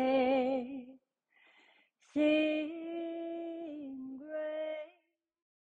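A woman singing solo, holding long, steady notes with a slight vibrato in two phrases. There is a short breath between them, and the singing stops about five seconds in.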